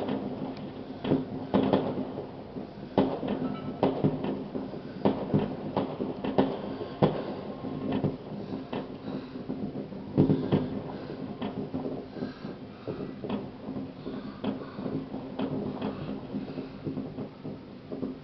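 Fireworks going off across a city: a long run of irregular bangs and crackles, the strongest about ten seconds in, over a steady low hum.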